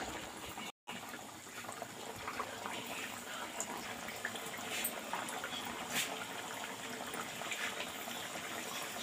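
Dough tikiyas deep-frying in hot oil in a kadhai: a steady sizzle with scattered crackles and pops, cutting out briefly just under a second in.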